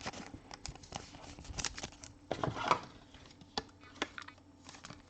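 Trading cards and their packaging being handled: a scatter of light taps, clicks and slides of card stock and plastic, irregular and close up.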